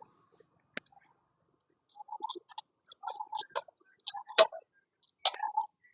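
Irregular metallic clicks, taps and clinks of hand tools on motorcycle engine parts. There is a single click about a second in, then a busier run of taps from about two seconds on.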